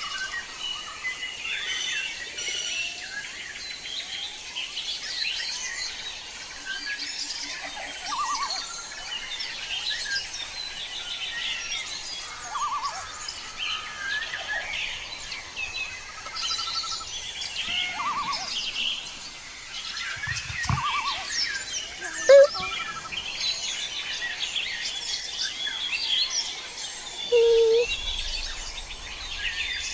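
A chorus of many small birds chirping and calling, with a few short trills mixed in. A single sharp click stands out about two-thirds of the way through.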